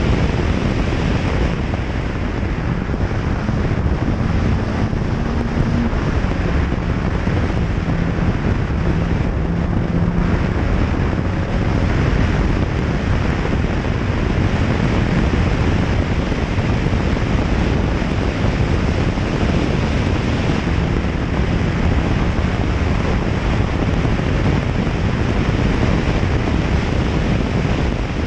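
Rally car at speed on a gravel road, heard from a camera outside the car: heavy wind buffeting on the microphone over steady tyre and gravel noise, with the engine note showing faintly now and then.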